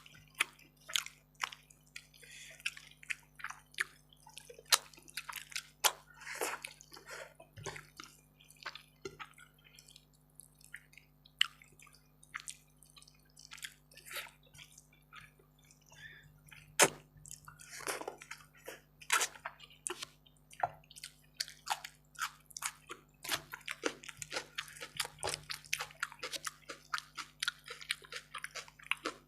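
Close-miked wet eating sounds of rice and chicken curry: chewing, lip smacks and squelching, many small irregular clicks with a few longer squishy stretches.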